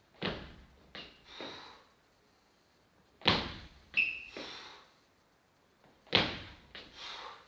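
A lifter's shoes stamp onto the gym floor in three reps about three seconds apart as he drills split jerks with a light stick. Each rep is a sharp landing stomp followed by two softer steps as the feet come back together. There is a brief shoe squeak in the second rep.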